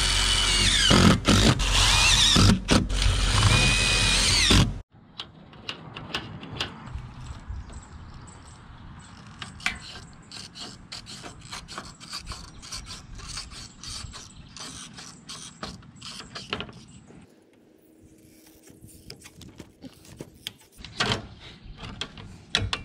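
A cordless drill driving screws through steel rake trim, its motor whining loud in short runs with brief stops. After it cuts off abruptly about five seconds in, aviation snips cut the sheet-metal trim in many sharp clicks and snips.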